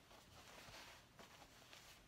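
Near silence, with the faint, irregular rustle of a fukuro obi being folded and tucked by hand.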